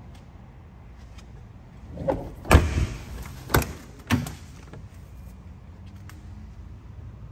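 Car doors on a 1983 BMW 733i sedan being handled: a loud thunk about two and a half seconds in, the sound of a door being shut, then two more clunks of a door latch working about a second and a second and a half later.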